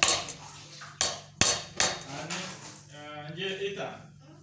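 Sharp knocks of a kitchen utensil against a mixing bowl, four of them in the first two seconds.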